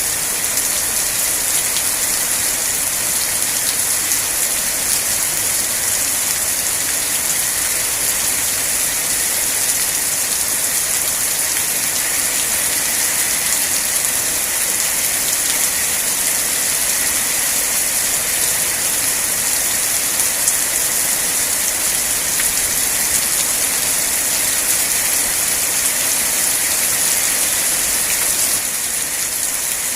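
Rain falling steadily as a dense, even hiss that dips slightly in level just before the end.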